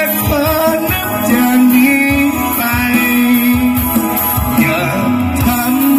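A song with singing and deep bass, played loud through an outdoor PA system of twin mid-low/mid-high cabinets and subwoofers being sound-tested.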